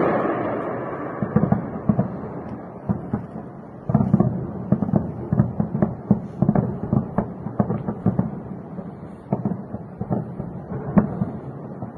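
Explosions and air-defence gunfire over a city at night: a blast rumbles away at the start, another sudden boom comes about four seconds in, then a rapid, irregular string of pops and cracks.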